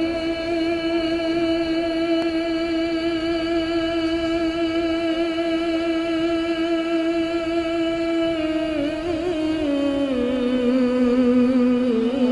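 A man singing a milad, the Islamic devotional chant in praise of the Prophet, with one long drawn-out note and no accompaniment. About two-thirds of the way through the note wavers and steps down to a lower pitch, which he holds on.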